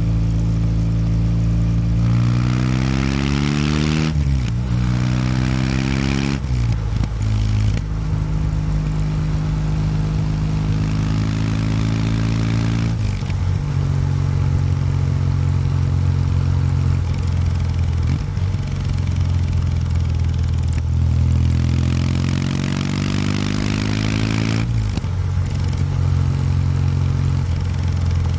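Kawasaki W800 Street's air-cooled parallel-twin engine through its stock exhaust, heard from on the bike while riding. It pulls up through two gears early, the pitch climbing and dropping sharply at each upshift about four and six seconds in. It then runs at a steady cruise, and near the end climbs once more before dropping back.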